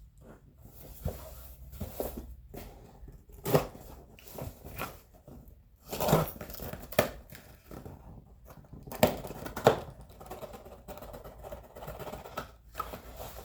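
A cardboard box being opened by hand: irregular tearing of tape and cardboard, with rustling and crinkling of packing.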